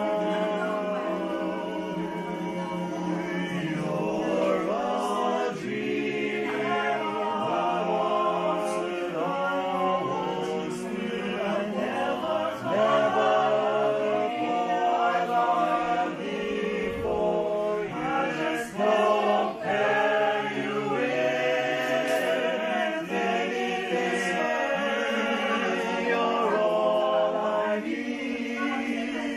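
Small choir singing a love song in several-part harmony.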